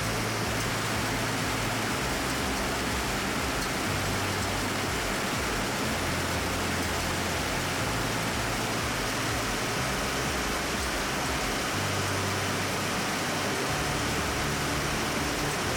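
A steady, even rushing noise that stays at one level throughout, with no distinct strokes or tones.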